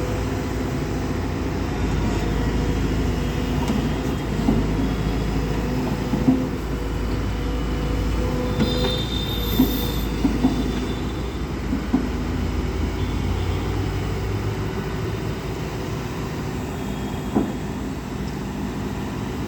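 Heavy vehicle running with a steady low rumble, with scattered metallic clanks and rattles and a brief high squeal about nine seconds in.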